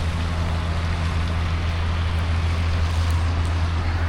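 Heavy rain pouring down as a steady hiss, over a constant low hum.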